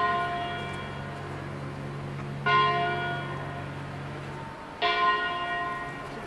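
Church bell tolling in slow, single strokes about two and a half seconds apart, each one ringing on and slowly fading.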